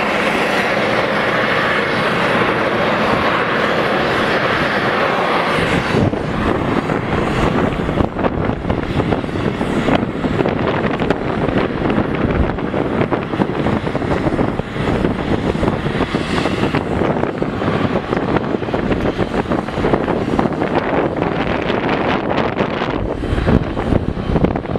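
Boeing 777-300ER's GE90-115B jet engines running at low power as the airliner taxis, a steady rushing whine. About six seconds in the sound turns rougher, with more low rumble and less hiss.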